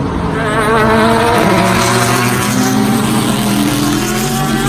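Car engine accelerating hard, its pitch rising steadily through the rev range.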